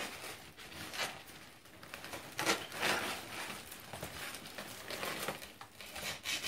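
Rustling and scraping of a white foam packing box as its lid is worked open, with clear plastic wrap crinkling as a wrapped item is pulled out. Several louder rubs and crinkles come about a second in and around two and a half to three seconds in.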